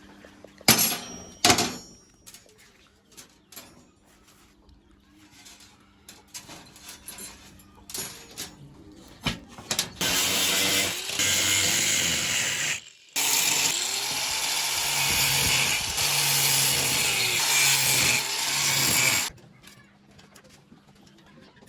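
Two sharp knocks, then light clicks of handling, then a handheld power tool running for about nine seconds, with a brief stop partway through.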